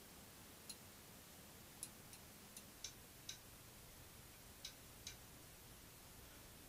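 Near silence with a steady faint hiss, broken by about eight small, sharp clicks at uneven intervals, bunched between about two and five seconds in.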